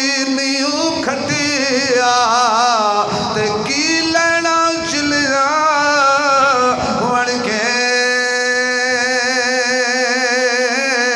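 A man chanting rubaiyat verse in a melodic, sung style. His voice wavers through ornamented notes, then holds one long note through the latter part.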